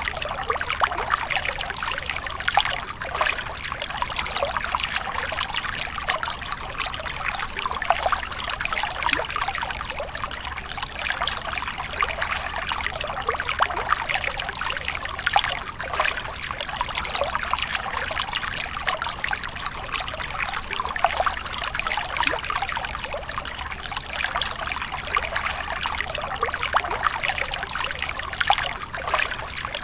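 A small stream of water trickling over a mossy rock and splashing into a shallow pool, steady and unbroken.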